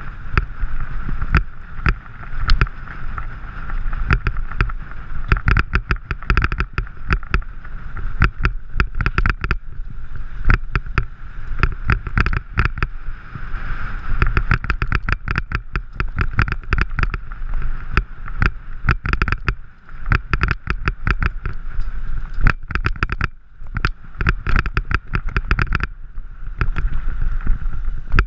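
Mountain bike riding fast over a rough, stony dirt track: dense rattling and knocking from the bike and camera mount over a steady low rumble of tyres on gravel, easing briefly twice in the second half.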